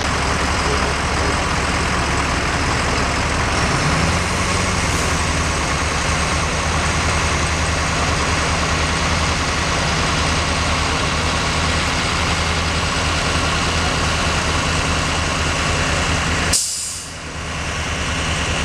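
Heavy diesel vehicles idling in a steady low rumble over road noise. About sixteen seconds in there is a short sharp hiss, and a city bus passes close by.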